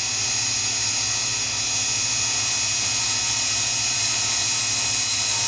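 Miniature grinding wheel on a Sherline-based cam grinder spinning at speed while a diamond dresser is traversed across it to true the wheel: a steady high hiss and whine over a low hum.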